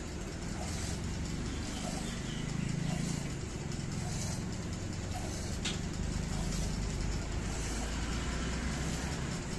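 Hand milking a cow: faint, regular squirts of milk into a small steel cup, about one a second, over a steady low rumble.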